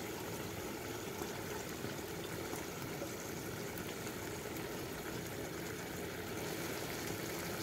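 Meat gently frying in oil in a pot over a lit gas burner: a steady low sizzle with a few faint pops.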